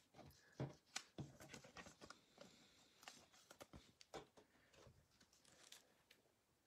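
Faint, scattered clicks and soft rustles of trading cards and their packaging being handled.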